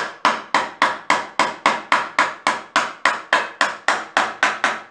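Hammer striking a pale wooden joint in a fast, even series of blows, about three a second, to drive the tight-fitting pieces home. The blows stop just before the end.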